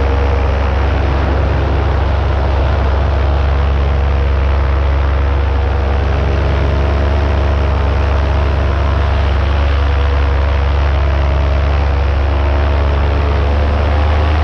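Paramotor engine and propeller running steadily under power in flight, a constant low drone with an even hum and no changes in pitch or level.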